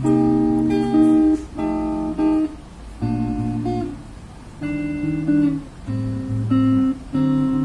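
Electric guitar played with a clean tone through a Peavey (PV) amp: a run of picked chords, each ringing about half a second to a second before the next one.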